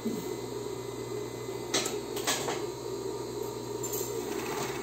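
Industrial coverstitch machine running steadily as it stitches down a folded elastic edge, with two short clicks about two seconds in.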